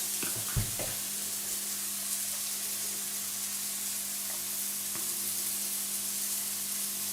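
Vegan burger patties sizzling in a frying pan, a steady hiss, with a small knock about half a second in.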